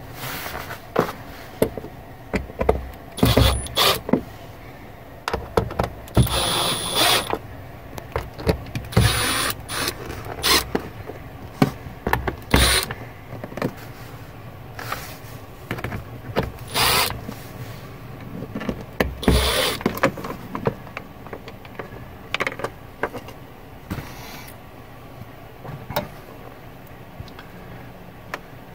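Cordless driver running in short bursts on the screws of wooden cabin trim, with knocks and clicks of handling in between.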